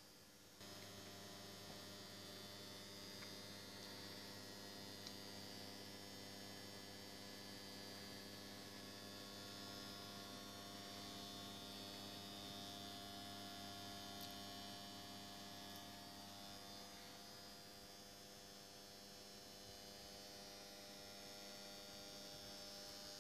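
Faint, steady electrical mains hum, a stack of even tones with a thin high hiss above it, coming in about half a second in.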